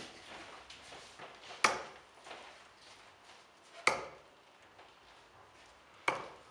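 Three steel-tip darts striking a Bulls Focus II bristle dartboard one after another, each a sharp thud, about two seconds apart.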